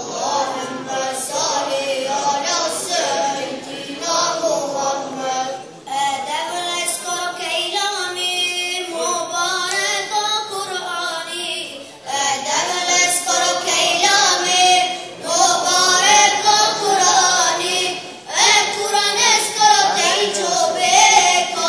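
Unaccompanied devotional chanting, sung in long wavering melodic phrases that break off about every six seconds.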